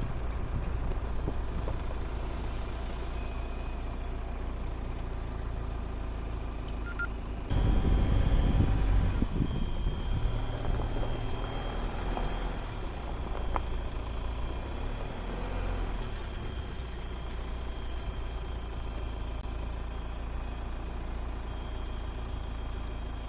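Off-road pickup truck driving, its engine and tyres making a steady low rumble that gets louder and rougher for a second or two about seven seconds in.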